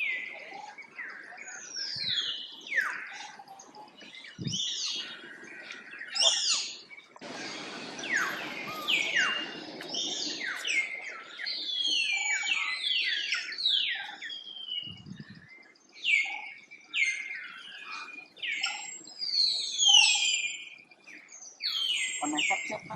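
Many short, high-pitched chirping calls, each sweeping down in pitch, repeated in quick runs, with a stretch of rustling about seven seconds in.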